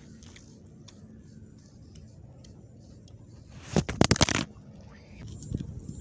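A short burst of loud rustling and crackling, like a takeaway food parcel's wrapping being handled, a little under four seconds in. It lasts under a second over a low steady outdoor rumble.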